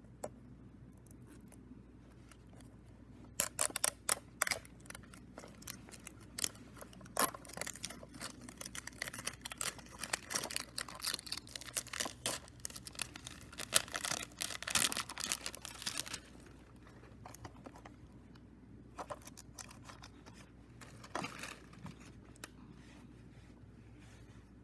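Cellophane wrapper being torn and peeled off a cassette tape case, a dense crinkling crackle for about twelve seconds, followed by a few light clicks and crinkles as the case is handled.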